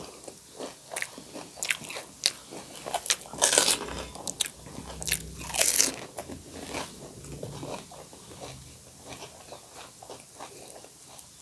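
Crisp, hollow pani puri shells crunching as they are bitten and chewed. It is an irregular run of crunches, the loudest about three and a half and six seconds in.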